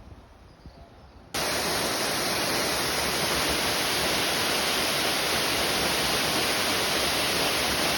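Steady, even rushing of water that cuts in abruptly a little over a second in and holds unchanged. Faint outdoor ambience comes before it.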